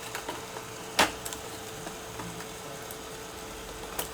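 Hands handling an opened laptop's parts during reassembly: one sharp click about a second in and a few faint ticks, over a faint steady hum.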